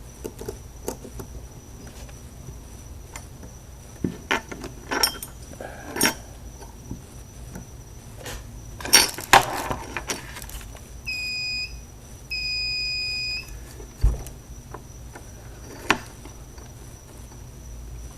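Multimeter continuity tester beeping twice, first briefly and then for about a second, each a steady high tone. Scattered sharp clicks and knocks come from handling the probes and parts, the loudest a little before the beeps.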